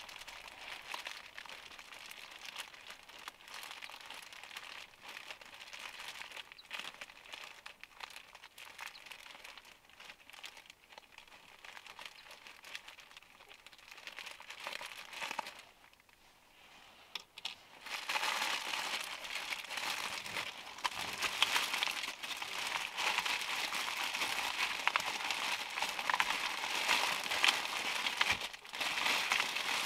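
Thin clear plastic bag crinkling as hands untwist it, open it and draw out a paper-wrapped loaf. The crinkling is fainter at first, drops away briefly about halfway, then comes back louder and denser.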